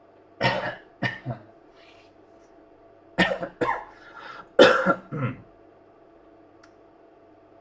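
A man coughing in three short fits of two or three coughs each, over a faint steady hum.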